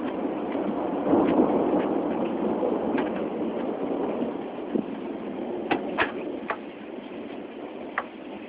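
Thunder rumbling, swelling about a second in and slowly dying away, heard through a phone microphone, with a few sharp ticks near the end.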